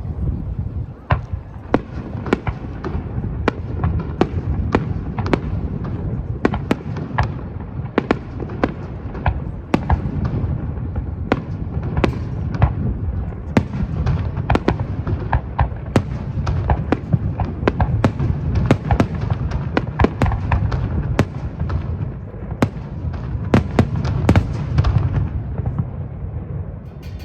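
Aerial fireworks display: a rapid, dense barrage of shell bursts, dozens of sharp bangs in quick succession over a constant low rumble.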